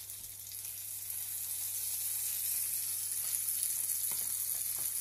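Cherry tomatoes sautéing in olive oil in a frying pan over medium heat: a steady sizzle that grows a little louder over the first couple of seconds, with a couple of faint ticks later on.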